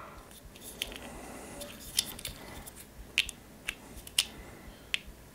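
Handling of a Moyu YS3 M speed cube's plastic core and a small screwdriver while its centre screws are loosened: scattered light clicks and taps, about six, at irregular intervals.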